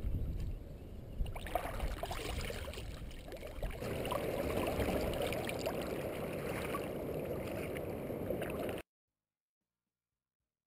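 Kayak being paddled: paddle blades dipping and splashing, water washing against the hull. The splashing grows fuller about four seconds in, then cuts off abruptly to silence about three-quarters of the way through.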